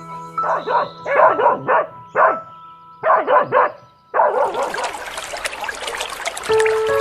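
Dog barking in quick bursts of short barks, about ten in all, over background music. A little after four seconds the barking stops and a steady rushing noise begins.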